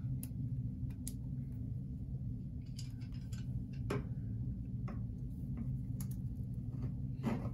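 Scattered light clicks and taps of tongue-and-groove pliers being handled and fitted onto a chrome faucet aerator, their jaws cushioned with rubber bands, over a steady low hum.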